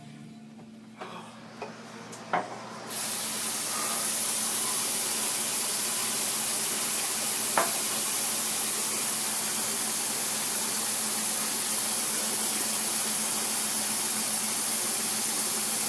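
A few light clicks and knocks, then a sink tap turned on about three seconds in, its water running steadily with a single click partway through.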